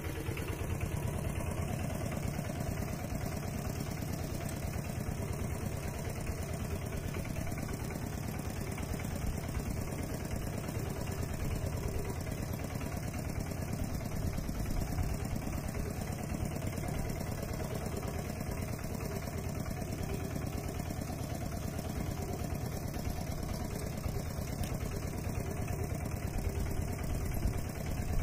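Mini tractor engine running steadily, with no revving up or down.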